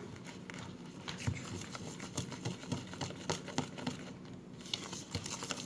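Pancake batter being mixed by hand in a bowl: a utensil stirring, with quick irregular clicks and scrapes against the bowl.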